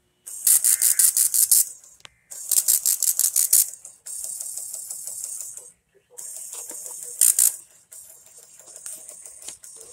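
Hissing radio static from a weather radio receiver, coming in bursts of about a second and a half. Each burst carries a rapid crackle of roughly eight pulses a second, with a steadier hiss between the bursts.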